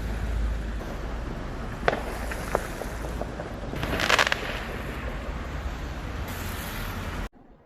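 Fireworks going off: a few sharp bangs about two seconds in and a burst of crackling around four seconds, over a steady rumbling background noise. The sound cuts off suddenly near the end.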